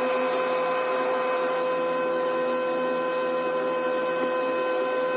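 A small electric motor running steadily, a constant whine with a hiss of noise over it, starting abruptly at the outset.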